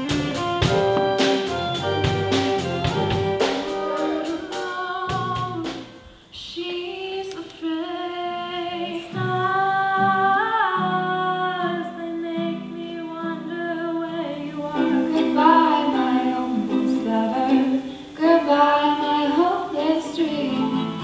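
Live acoustic music in short edited snippets: for about six seconds an instrumental passage with sharp, regular hits, then women singing over plucked-string accompaniment (acoustic guitar and ukulele).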